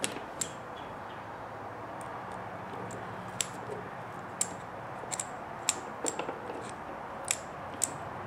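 Light, scattered clicks and ticks of a hex driver and small metal RC axle parts being handled while a screw is started into the C-hub, about nine clicks spread irregularly over a steady background hiss.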